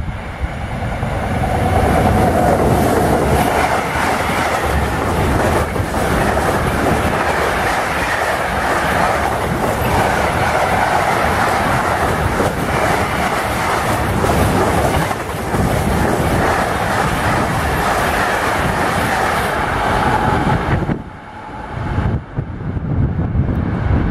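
Freight train of intermodal wagons passing at speed on the track beside the platform: a loud, steady rush of wheels on rails that builds over the first couple of seconds and cuts off suddenly about 21 seconds in as the last wagon goes by.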